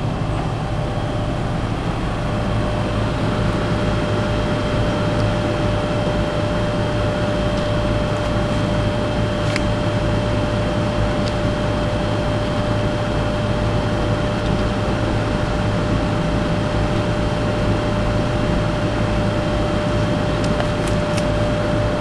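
Forced-air furnace blower running steadily, pulling air through a month-old pleated air filter: an even rush of air with a low hum and a thin steady whine, and a few faint ticks.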